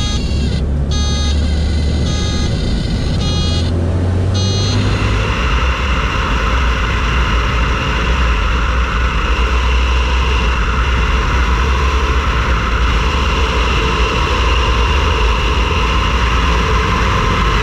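Cockpit noise of a Beechcraft A36 Bonanza in flight: a low engine and propeller drone with a steady tone over it for the first four seconds or so. About five seconds in, a loud rush of wind noise comes in and holds until near the end as the airplane dives nose-down.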